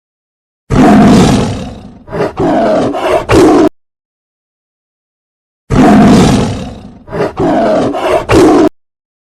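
Lion roaring sound effect, played twice. Each time there is one long roar that fades away, followed by three shorter roars.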